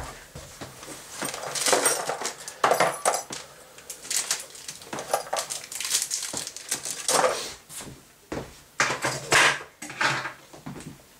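Irregular clinks, scrapes and rustles of small metal and plastic parts being handled: a CPU tower cooler's fan and its wire mounting clips.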